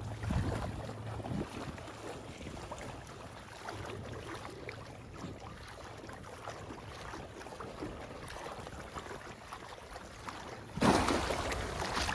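Water splashing and sloshing, with a sudden louder rush of water near the end.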